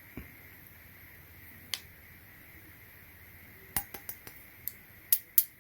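Sharp clicks and clinks of small hard keyboard parts and the metal case being handled: a scattered few in the first two seconds, then a quicker run of louder ones near the end.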